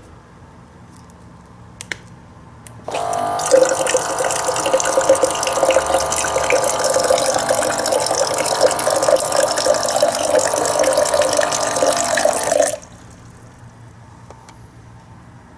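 Electric bottled-water dispenser pump on a large water jug: a click, then about a second later the small pump motor starts with a steady hum and water pours and splashes from its spout for about ten seconds before it cuts off suddenly.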